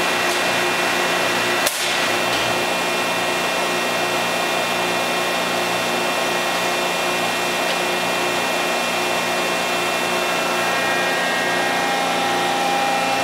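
Hydraulic power unit of a 1018-ton hydraulic press running under load during a press cycle: a steady motor-and-pump hum with a whine. A single sharp click comes a little under two seconds in, and near the end a new, higher steady tone joins the hum.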